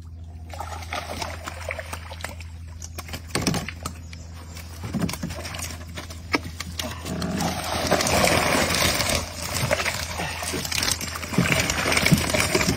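Water splashing and sloshing against a wooden boat, with scattered knocks, growing louder about halfway through.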